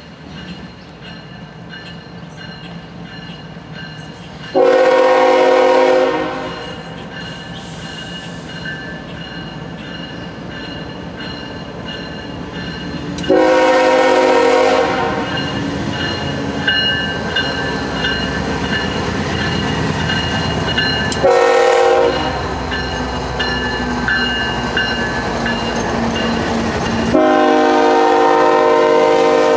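Union Pacific diesel locomotive's air horn sounding the grade-crossing signal: two long blasts, one short, then a long one, as the train approaches and passes. Between the blasts the locomotive's engine and the coaches on the rails grow steadily louder.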